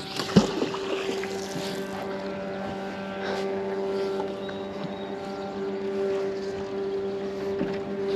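Electric trolling motor on a small boat humming steadily as a pitched drone while the boat moves along. A brief knock about half a second in.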